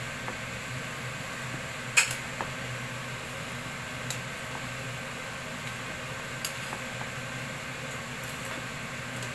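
A utensil tossing vegetables in a nonstick pan, with a few sharp clicks of it knocking against the pan, the loudest about two seconds in, over a steady background hum.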